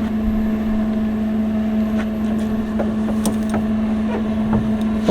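MIG welding on thin car-body sheet metal: a steady buzzing hum with scattered short crackles from the arc in the second half.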